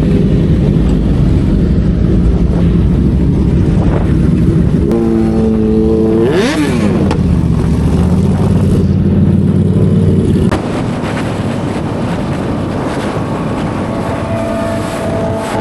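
Car engine and road rumble while driving, with an engine revving down and back up about six seconds in; the rumble drops somewhat past the ten-second mark.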